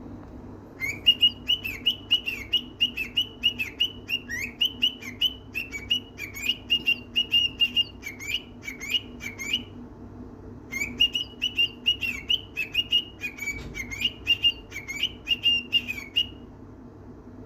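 Cockatiel singing a fast string of short rising and falling chirps and whistles, with a brief pause about ten seconds in before the song resumes.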